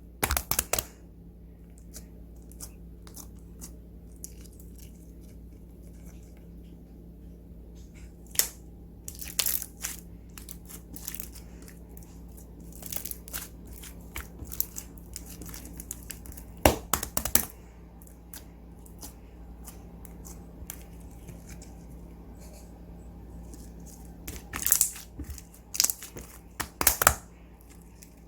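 Slime being worked by hand, stretched and squished, giving scattered sticky pops and crackles in small clusters every few seconds.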